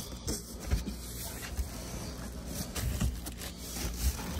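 Cardboard box flaps and the plastic bag around a subwoofer rustling and scraping as a hand reaches into the box to work the speaker out, with a few light knocks.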